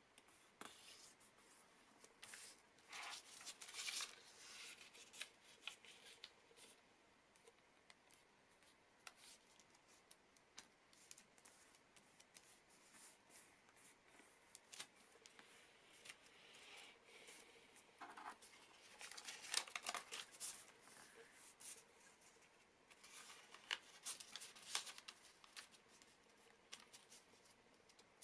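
A sheet of origami paper being folded and creased by hand on a cutting mat: quiet rustling and crinkling with sharper scrapes as fingers press and run along the folds. It comes in clusters, a few seconds in, again past the middle, and near the end.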